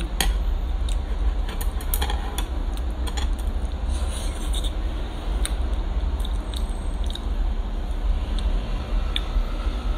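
Close-up eating sounds: a person chewing mouthfuls of fish soup and rice from a spoon, with sharp spoon and mouth clicks, most of them in the first three seconds, over a steady low hum.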